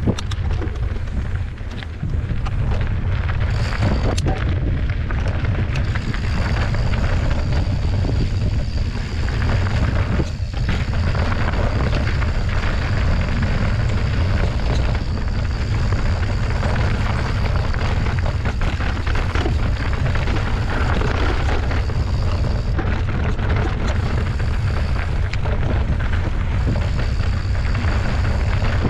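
Wind buffeting a GoPro's microphone: a loud, steady, deep rumble with rushing noise over it.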